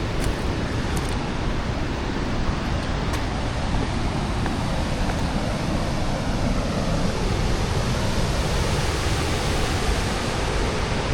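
Waterfall rushing, a steady, thundering loud roar of falling water.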